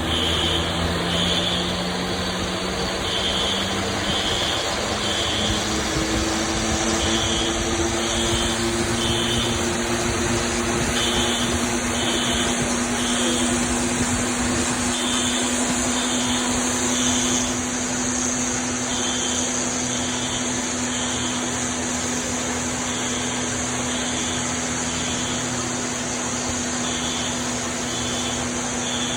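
Fire alarm beeping in repeated groups of three over the steady rushing noise of a hangar's high-expansion foam system discharging.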